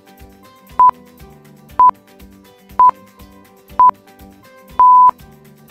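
Electronic countdown beeps: four short beeps about a second apart, then one longer beep at the same pitch marking zero, over soft background music.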